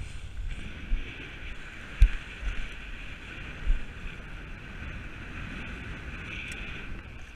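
Wind buffeting the microphone in a steady low rumble, over the hiss of choppy water washing against jetty rocks. A few thumps break through, the loudest a sharp knock about two seconds in.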